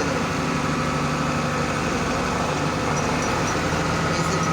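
Heavy diesel truck engine idling steadily, with a thin high whine joining near the end.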